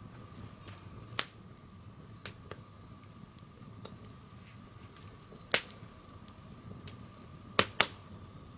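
Swedish torch, a log split for burning from its centre, burning, its wood giving sharp pops at irregular intervals, two of them close together near the end.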